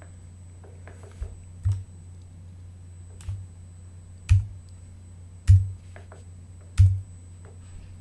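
Computer mouse clicks and keyboard key presses while working in 3D software: about six sharp, separate clicks, several with a dull thump, over a steady low hum.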